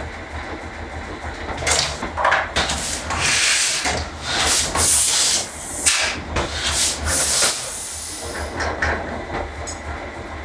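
Vintage Heidelberg platen letterpress running, with a steady motor hum and a hiss of air at short, fairly regular intervals as the press cycles.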